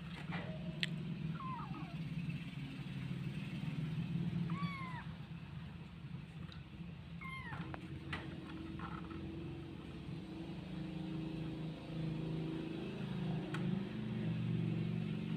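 Kitten mewing: three short, high mews, about a second and a half in, near five seconds and near seven seconds, over a steady low hum.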